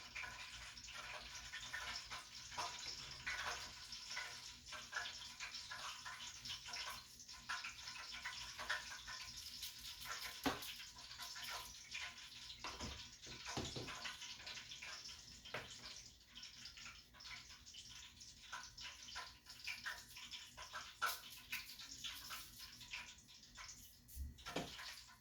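Chicken frying in hot grease: a steady sizzle with frequent small crackles and pops.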